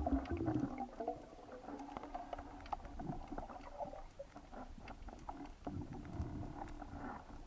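Underwater ambience picked up by a camera on a speargun: a low steady hum with scattered sharp clicks and crackles, and a louder low rumble at the very start.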